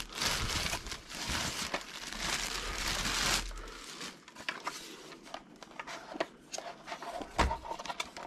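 Plastic packaging wrap crinkling as it is handled and pulled off a newly unboxed part. The rustle is dense for the first three and a half seconds, then thins to scattered crackles and clicks.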